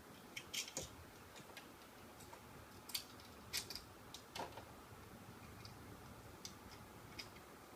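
Quiet room with about a dozen faint, irregular clicks and light taps, scattered unevenly rather than in a steady rhythm.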